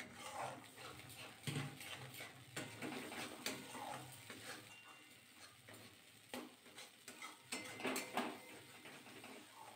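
Metal spatula scraping and knocking against a metal kadai as thick spice paste is stirred and fried down: faint, irregular scrapes and clicks.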